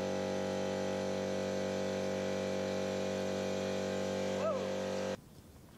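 Air compressor running in the background, a steady hum that cuts off suddenly about five seconds in.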